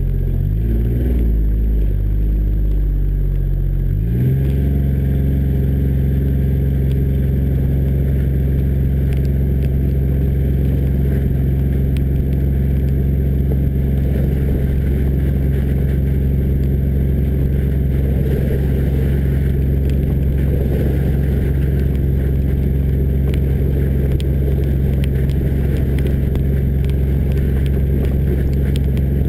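John Deere Gator 855D's three-cylinder diesel engine running while the vehicle is under way, with tyre and wet-ground noise close to the front-left wheel. The engine note shifts for the first few seconds, then holds steady.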